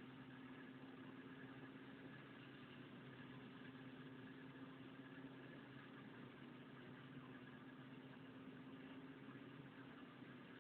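Faint, steady mechanical hum with a low steady tone, like a motor or engine running at a constant speed in the background.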